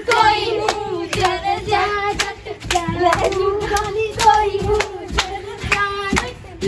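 Girls singing Punjabi boliyan with no instruments, over sharp hand claps about twice a second keeping the beat.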